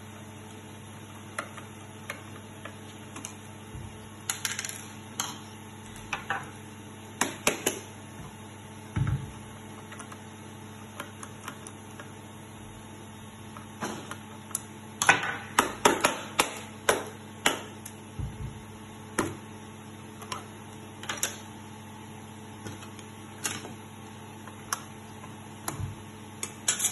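Irregular clicks and light knocks of small screws, a screwdriver and the plastic housing of a fiber fusion splicer being handled on a wooden desk as the case is taken apart, with a quick run of sharper taps about halfway through.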